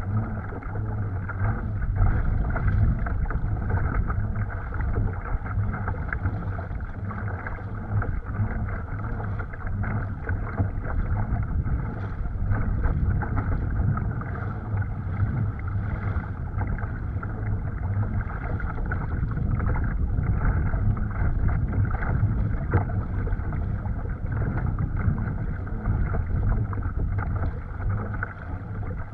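Steady rush and slap of choppy water against a pedal kayak's hull as it moves along, with wind on the microphone.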